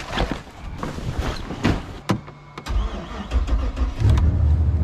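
A few clicks as the ignition key is turned, then a 2013 Moomba wake boat's inboard engine cranks briefly and catches about two and a half seconds in, starting readily. It settles into a steady low idle that gets louder about four seconds in.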